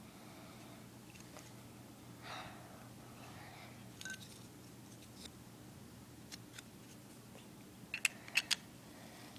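Plastic building bricks clicking as they are handled and pressed together: a few faint clicks, then three sharp clicks near the end as a piece is snapped onto a plate.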